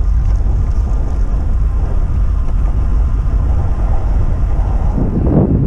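Wind rushing over the camera microphone while cycling along a road, a steady low rumble that grows louder about five seconds in.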